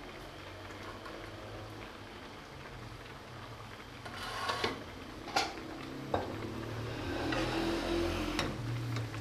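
Breaded chicken patties deep-frying in hot oil, a steady sizzle. About four seconds in the sizzle grows louder, with two sharp clicks of a metal slotted spoon against the pan as the patties are turned.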